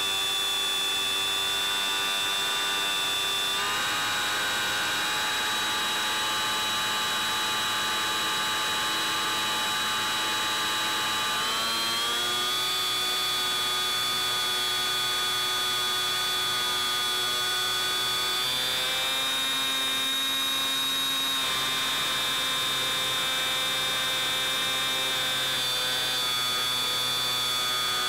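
Brushless electric motor and propeller of a Bixler 3 foam RC plane whining steadily in flight, its pitch stepping up or down several times as the throttle is changed.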